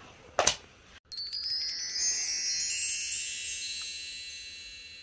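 Wind-chime sound effect: a cascade of bright, high chime tones starting about a second in, ringing on and slowly fading. Just before it, a short rustle.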